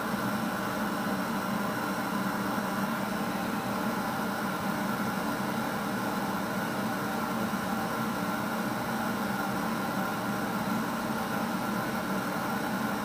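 Steady background hiss with a low, even hum underneath, unchanging throughout: room and recording noise with no distinct event.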